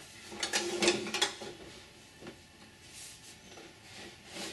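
Thin aluminium aircraft sheet-metal skin being handled and turned over, with a cluster of light rattles and clicks about a second in and a few softer knocks after.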